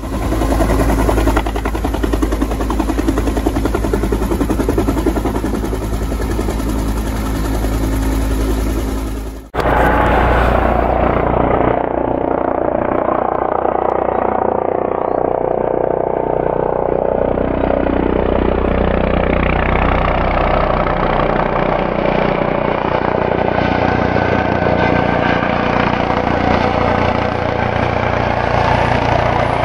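Helicopter rotor and turbine sound: first a helicopter running close by on the ground. After a sudden cut about a third of the way in, a Eurocopter EC155 approaches in flight, its sound gaining more and more of its higher whine as it comes closer.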